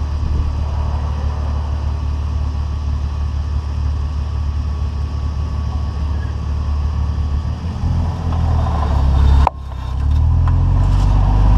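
BMW E46 330i running on the road with a steady low drone, then one sharp clunk about nine and a half seconds in, after which the sound drops off suddenly and builds up again. The clunk is presumed to come from the Wavetrac limited-slip differential and appears only once the diff and its fluid are at operating temperature.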